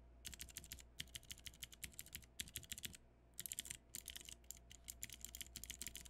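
Cherry MX Blue clicky switches on a Max Keyboard Falcon-8 eight-key macropad, clicking under rapid key presses in quick runs, with a pause of about a second near the middle.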